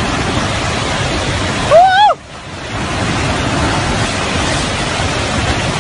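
Steady rushing roar of a mudflow of floodwater and debris. A single loud shout, rising then falling in pitch, cuts through it about two seconds in.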